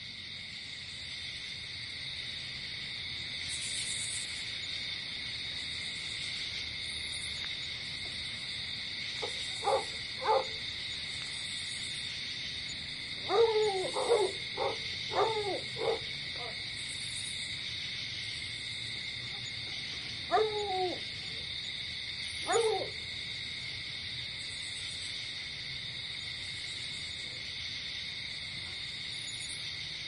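Night ambience: insects chirring steadily, with an animal's calls, each falling in pitch. There are two calls, then a quick run of about five, then two more.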